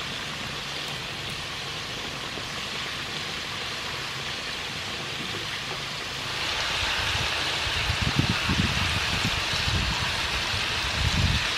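Soybean oil sizzling steadily as stuffed squid deep-fry in a wok, a rain-like hiss that grows louder about six seconds in. A few low bumps come near the end.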